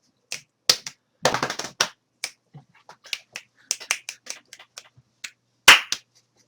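An irregular run of short, sharp clicks and snaps, with a denser rattling cluster about a second in and one loud snap near the end.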